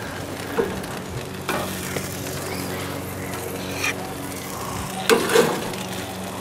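Thick pork neck steaks sizzling as they are lifted off a gas grill's grate with metal tongs, with a few sharp clacks and knocks from the tongs and meat, the loudest just after five seconds in.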